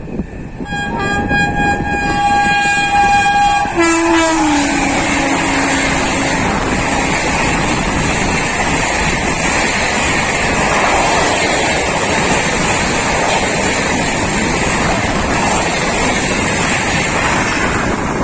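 Indian Railways Duronto Express sounding one long horn blast of about three seconds, its pitch dropping sharply as the locomotive passes. It is followed by the loud steady rush and rattle of the coaches going through the level crossing at speed.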